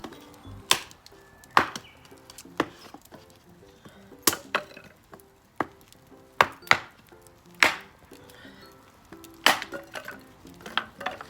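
Wood being chopped: a dozen or so sharp cracks, irregularly spaced about a second apart, over quiet background music.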